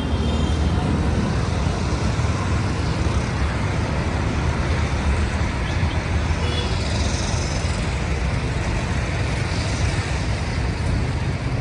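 Steady road traffic noise: cars and motor vehicles running past in a continuous low rumble.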